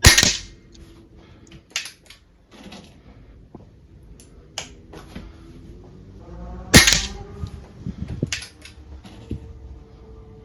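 Two shots from an Anschütz 9015 HP sub-12 ft-lb air rifle, a sharp crack at the start and another about seven seconds later, with several small clicks between them as the rifle is handled for the next shot.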